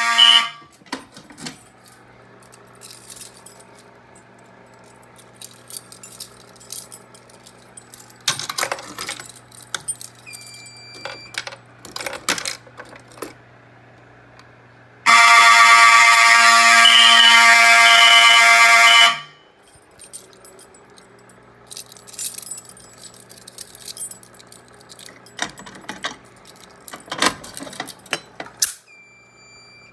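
Fire alarm horn sounding in short spells during a walk test: a loud, pitched blare with a pulsing high tone cuts off about half a second in, then sounds again for about four seconds near the middle. Between the two spells there is a steady low hum, scattered clicks and a couple of short beeps.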